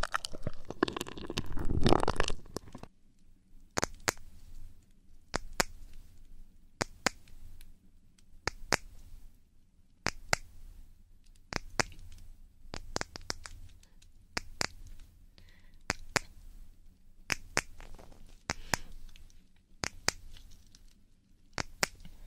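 Close-microphone ASMR sounds: about three seconds of loud dense rubbing, then a series of sharp, quiet clicks and taps at uneven spacing, often in pairs.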